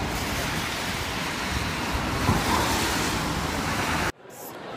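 Steady rushing street noise of traffic hissing on wet pavement, which cuts off abruptly about four seconds in.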